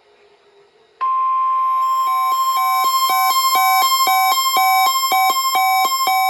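NOAA Weather Radio warning alarm tone: after a second of near quiet, a single steady high tone starts and holds. A second alarm beeps over it about twice a second. The tone signals that a tornado warning is about to be read, here the drill's test warning.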